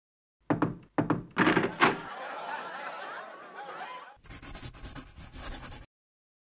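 Four knocks on a door, followed by a couple of seconds of several overlapping voices and laughter.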